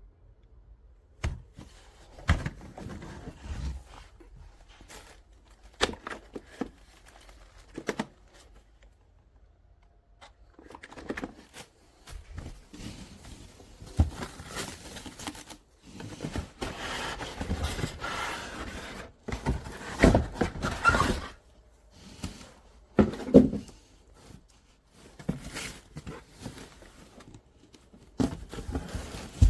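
Irregular handling noises: scattered knocks and thunks with stretches of rustling and scraping, loudest in a cluster past the middle.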